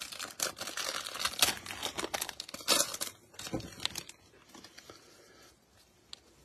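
Plastic wrapper of a trading-card pack being torn open and crinkled in gloved hands, dying down after about four seconds. A couple of faint clicks follow near the end as the cards are handled.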